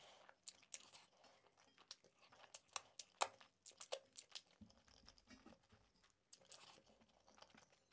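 A person chewing a mouthful of rice and egg curry eaten by hand, with irregular wet mouth clicks and lip smacks as fingers are licked clean.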